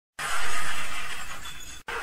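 A sound effect for the channel logo: a crash-like burst of noise that starts suddenly and fades over about a second and a half, then breaks off sharply. A steadier rushing noise follows.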